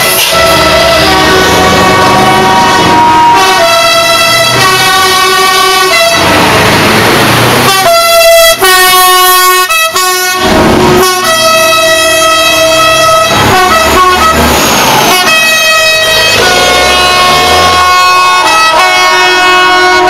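Truck air horns sounding a run of long, loud multi-note blasts one after another, with short breaks and some changes of chord. Rushing noise fills two gaps, about six and ten seconds in.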